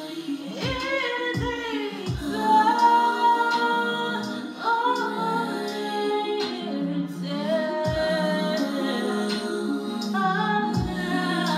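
A woman singing into a microphone, holding and sliding between notes, over backing music with steady low notes and a low thump now and then.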